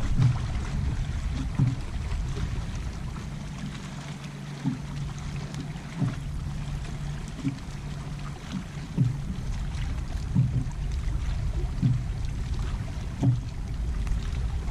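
Small waves slapping against the hull of a bass boat in short, low, irregular slaps about every second or two, over a steady low rumble.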